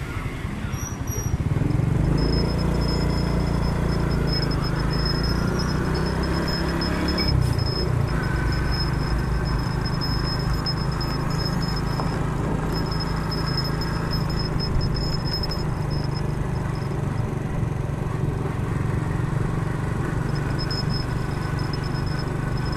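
Motorcycle engine pulling away about a second and a half in, rising in pitch for a few seconds, then running steadily as the bike cruises.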